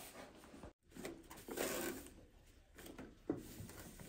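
Rustling and knocking of things being handled indoors, with a sharp knock about three seconds in and a brief cut to silence just under a second in.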